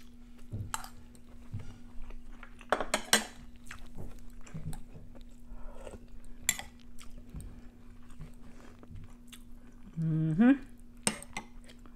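Eating sounds: a metal spoon clinking now and then against a ceramic bowl and plate, and chewing of chicken soup. About ten seconds in, a short hummed "mm" rising in pitch.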